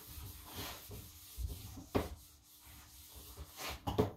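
Handheld whiteboard eraser scrubbing back and forth across a whiteboard, with a couple of sharp knocks about two and four seconds in.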